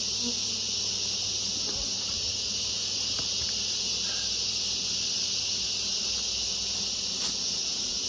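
Steady, high-pitched drone of insects that holds level without a break, with honeybees swarming over the opened hive among them.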